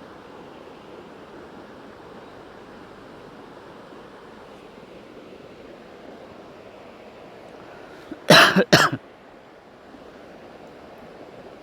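A person coughs twice in quick succession a little over eight seconds in, over a steady background hiss.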